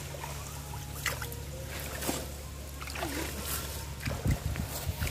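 Pond water sloshing and trickling as a drag net is hauled through it, over a low steady rumble, with a dull low thump about four seconds in.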